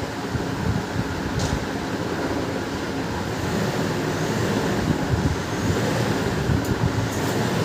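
Steady low rumbling background noise, with a light click about a second and a half in and a few more near the end.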